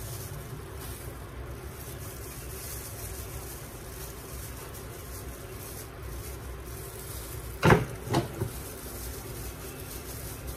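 Steady background hiss with a low hum, broken late on by two sharp knocks about half a second apart, the first the louder, and a fainter third just after.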